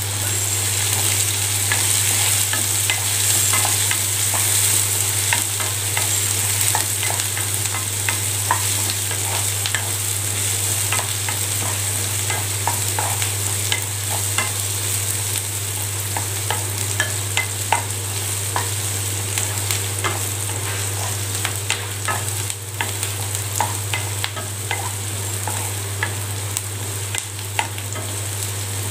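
Chopped onions and curry leaves sizzling in hot oil in a nonstick kadai, with a steady high hiss. A slotted wooden spatula keeps stirring them, scraping and tapping the pan in many small, irregular clicks, over a steady low hum.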